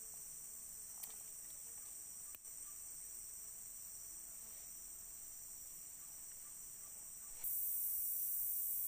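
A chorus of insects, crickets or cicadas, chirring steadily and high-pitched. About 7.5 seconds in, it suddenly grows louder and fuller.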